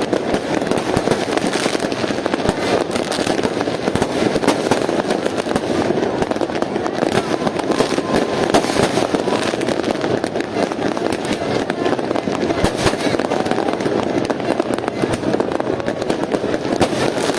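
Many fireworks and firecrackers going off at once, a dense, continuous crackle of bangs with no break, with people's voices in the background.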